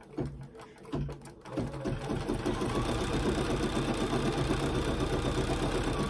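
Bernina 790 Plus embroidery machine stitching an appliqué design. After a few light clicks it starts up about a second and a half in and runs at a steady, fast stitching rhythm.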